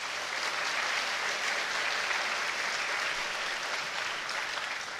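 A large audience of students applauding, a dense steady clatter of many hands clapping.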